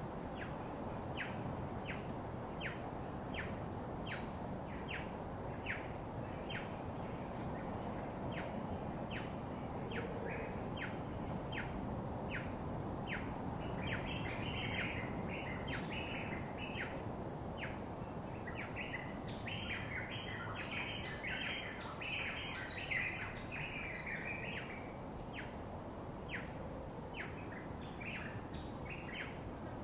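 Birds calling: one repeats a short falling note about every two-thirds of a second while others break in with bursts of busy chattering, over a steady low hiss.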